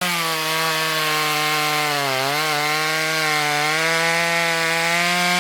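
Small two-stroke chainsaw, a ported 42cc Black & Decker clone, running at high revs and cutting wood. Its pitch dips briefly under load about two seconds in, then recovers.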